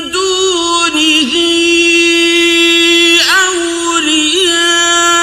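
A man chanting Quran recitation with tajweed, drawing out a syllable on long, steady held notes broken by short ornamented turns in pitch.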